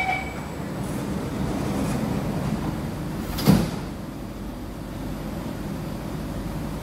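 Passenger doors of a C151C metro train sliding shut after the door-closing chime, meeting with one sharp thump about three and a half seconds in, over the steady hum of the standing train.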